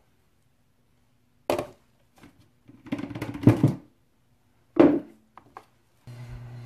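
Plastic containers and utensils handled on a tabletop: a sharp knock about one and a half seconds in, a run of thuds and clatter around the middle, and another knock near five seconds. A steady low hum sets in near the end.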